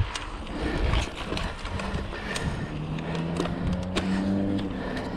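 Bicycle rolling over a rough towpath: rattling clicks and knocks from the bike, with wind rumble on the microphone. A steady low humming tone joins about halfway through.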